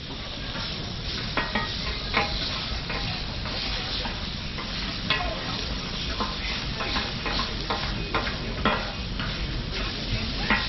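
Chicken sizzling on a hot flat-top griddle, with metal tongs and a spatula clicking and scraping against the plate at irregular moments as the pieces are turned and cut.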